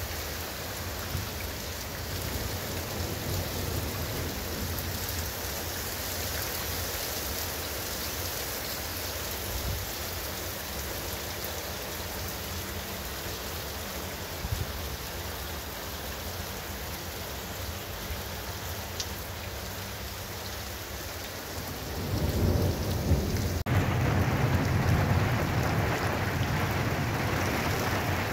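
Heavy rain pouring steadily on flat concrete rooftops. About three-quarters of the way through it grows louder, with a deep low rumble underneath.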